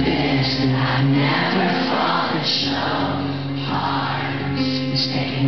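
Live acoustic rock performance: two acoustic guitars playing chords, with singing over them.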